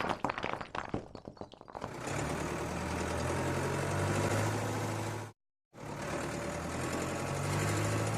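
A few scattered clicks and rattles fade out, then a cartoon loader's engine sound effect starts and runs with a steady hum. The hum cuts out completely for about half a second, a little after five seconds in, then resumes.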